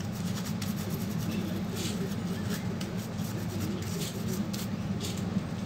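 A steady low hum, with scattered small clicks and taps as the parts of an opened laptop and its motherboard are handled.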